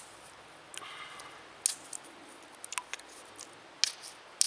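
A hammerstone knapping the edge of a slate slab: sharp, irregular stone-on-stone taps, about six hard strikes with a few lighter ones between, knocking flakes off to rough the slate into a round blank for a friction turkey call.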